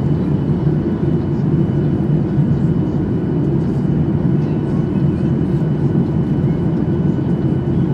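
Steady cabin noise of a Boeing 737-800 in flight: the low, even roar of its CFM56 turbofan engines and the air rushing past the fuselage, heard from a window seat, with a faint thin steady whine above it.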